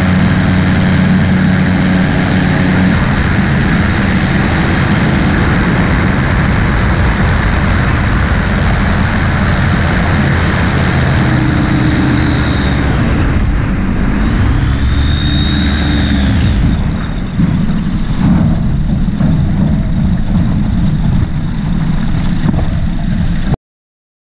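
Amphibious trike's Rotax 912 engine and pusher propeller running in flight, with wind on the microphone. The engine note changes as power is adjusted, gliding up and down around the middle, and the sound cuts off suddenly near the end.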